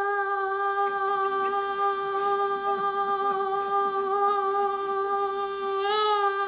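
A ventriloquist holding one long sung note in his puppet's high, childlike voice, steady in pitch with a slight waver near the end.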